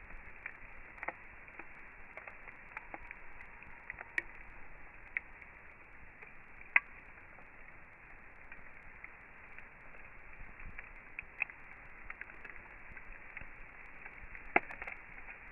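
Campfire crackling: a steady hiss with scattered sharp pops, the two loudest about seven seconds in and near the end.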